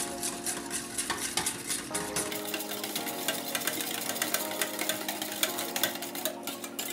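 Small wire whisk stirring warm milk in a stainless steel bowl to dissolve soaked gelatin, its wires clicking rapidly and lightly against the metal.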